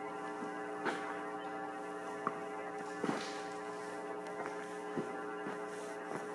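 A steady electrical hum made of several fixed tones, mains-hum-like, with a few soft knocks scattered through.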